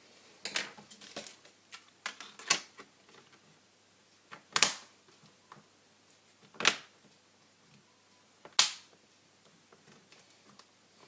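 A quick run of sharp clicks and taps, then three single loud clicks about two seconds apart.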